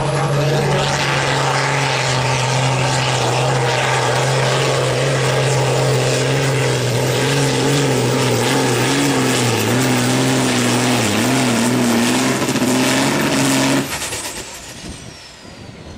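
Valtra 'Hot Hunter' super-farm pulling tractor's diesel engine running flat out under full load as it drags the weight sled, its pitch wavering a little in the later seconds. About 14 seconds in the engine cuts off suddenly, and a very high whistle above it winds down.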